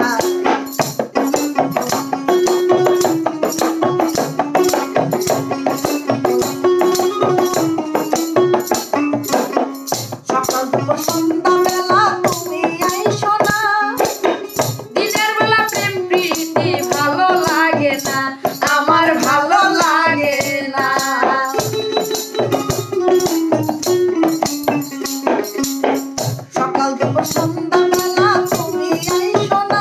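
Song backing music with a fast, even percussion beat and a held low melody line. A woman's singing voice comes in over it for a stretch in the middle.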